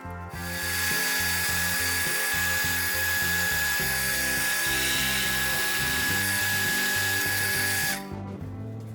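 A power tool running steadily with a high, constant whine, starting about half a second in and stopping abruptly near the end, over background music.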